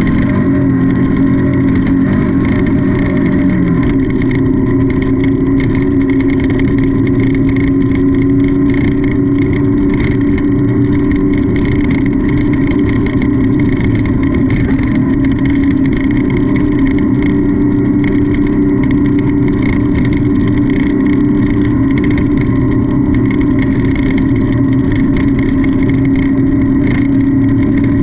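Off-road race car's engine running hard at steady high revs, its pitch holding nearly level with small dips, over a constant noisy rush.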